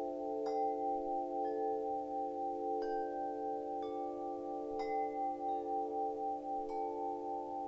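Wind chimes ringing: a new chime is struck about once a second, each strike leaving a clear tone that rings on over a bed of lower tones still sounding. The overlapping tones waver slowly in loudness.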